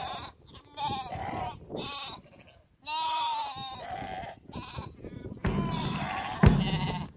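Several sheep bleating, separate wavering calls one after another. About five and a half seconds in, a brass band starts playing a march with drum beats.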